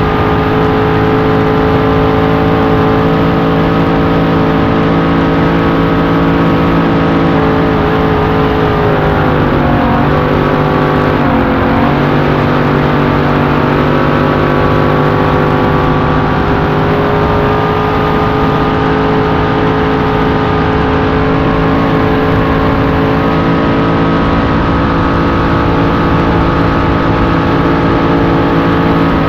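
Supercharged, fuel-injected 427 Chevy big-block V8 of a Grand National V-drive race boat running flat out, heard on board. The steady engine note dips briefly about ten seconds in, then comes back up.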